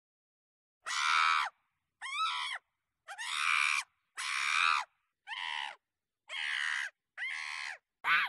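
Monkey screeching: seven separate calls of about half a second each, roughly a second apart, beginning about a second in.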